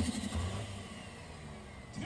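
A diesel pulling truck's S480 turbocharger spooling down off throttle, a faint whistle falling steadily in pitch, over the 24-valve Cummins engine's low idling rumble.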